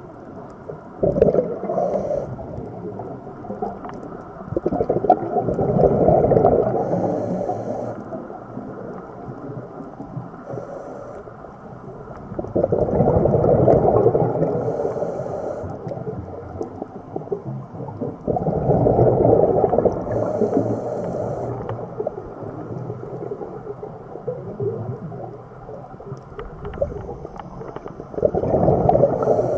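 Underwater deep-ocean ambience: a steady low wash with deep, surging swells that rise and fade every few seconds, about five times, and faint bubbly hiss over the top.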